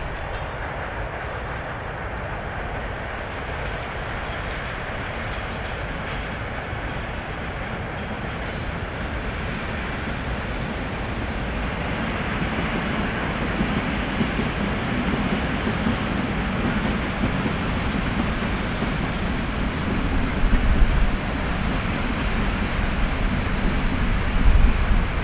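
ET22 electric freight locomotive running with a train of freight wagons rolling slowly behind it, a steady even noise that grows slowly louder. A thin high whine joins about halfway through, and a couple of low thumps come near the end.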